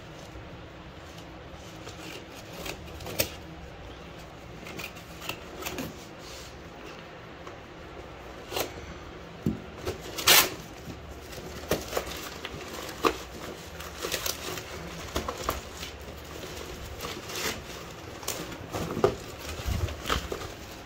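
Scissors and hands cutting and tearing open a taped cardboard box and its plastic wrapping: irregular rustling and crinkling with sharp rips, the loudest about ten seconds in.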